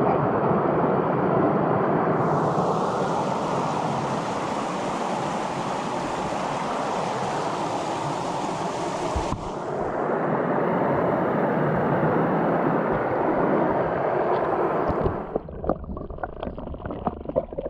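Rushing creek water, a loud steady hiss. There is an abrupt change about nine seconds in, and near the end it falls away to quieter water with small splashes and knocks.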